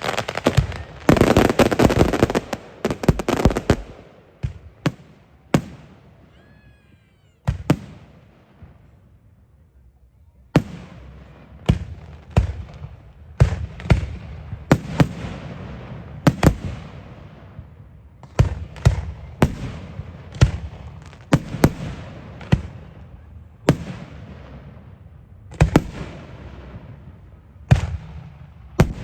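Fireworks display: a dense volley of bangs and crackle for the first few seconds, a short lull, then a steady run of single shell bursts, one or two a second, each with an echoing tail.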